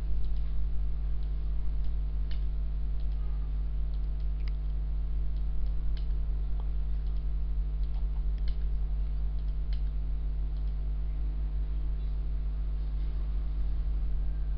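Sparse, faint clicks from a computer mouse or keyboard, one every second or two, over a steady low electrical hum.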